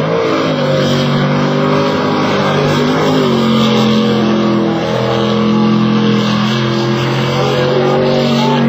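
Racing motorboat engine running hard at high revs, its pitch dipping briefly and climbing back a few times as the throttle changes.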